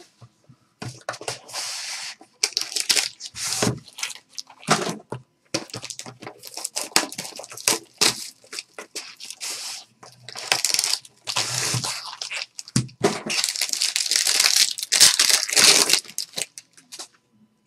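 Trading-card pack and box wrappers being torn open and crinkled by hand: repeated irregular ripping and crinkling bursts, some short, some lasting a second or more.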